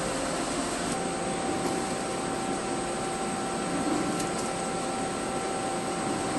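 CNC machine running steadily: an even hiss with a few steady whining tones, one of which comes in about a second in.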